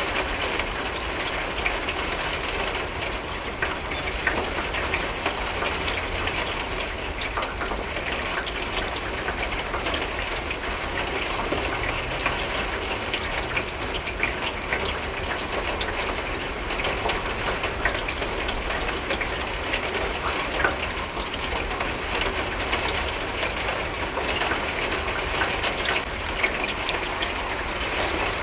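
Steady rain falling on a window: a constant hiss of water, full of small drop ticks, over a low rumble.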